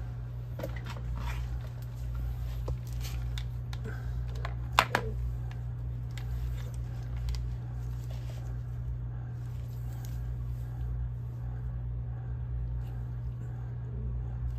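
Steady low hum of lab equipment, with a few scattered light clicks and taps in the first five seconds and one sharp click about five seconds in.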